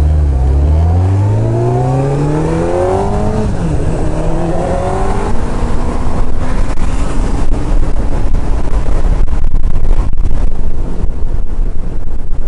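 Motorcycle engine revving up as the bike accelerates away, its pitch climbing, dropping at a gear change about three and a half seconds in, then climbing again. From about halfway through, wind rushing and buffeting over the microphone at speed drowns out the engine.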